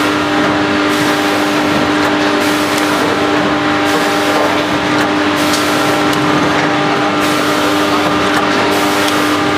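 Automatic food packaging machine running steadily: a constant motor hum under a mechanical hiss that swells and drops in a regular cycle about every second and a half.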